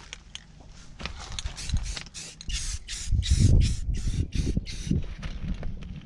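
A Rust-Oleum camouflage spray paint can hissing in a quick series of short bursts as the paint is sprayed onto a canoe hull. In the middle of the bursts, wind gusts rumble on the microphone.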